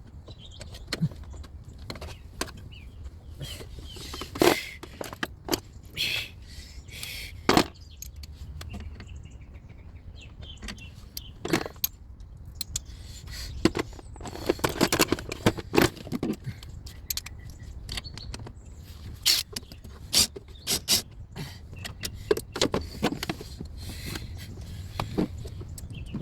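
Metal hand tools and parts clinking and knocking irregularly while turbo oil-feed and boost-pipe fittings are being unbolted, over a steady low hum.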